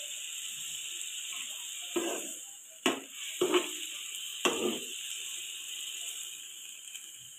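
Steel ladle stirring black chickpeas in a wok, knocking and scraping against the pan about four times in the middle of the stretch, over a steady hiss of the pan simmering with tamarind water.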